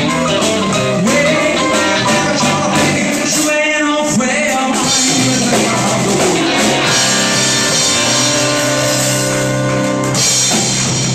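Live rock and roll band playing: male lead vocal over electric guitar, keyboard and drum kit. A short break about three and a half seconds in, then the band holds long sustained chords.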